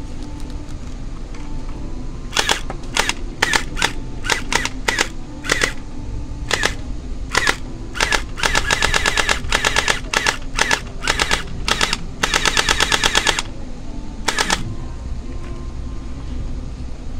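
Battery-powered Glock-style gel blaster firing: from about two seconds in, a string of single shots, then two rapid-fire bursts of a second or two each, and a last shot near the end, over a steady low hum.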